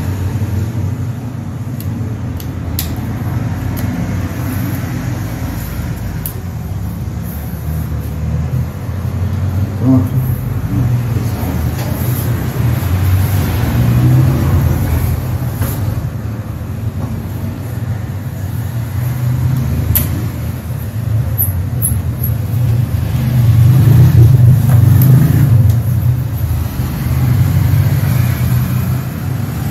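Steady low rumble of motor traffic, swelling louder about two thirds of the way through, with a few scattered clicks.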